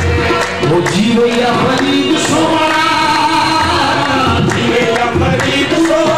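Qawwali: singing with long, bending melodic lines over a steady beat on hand drums.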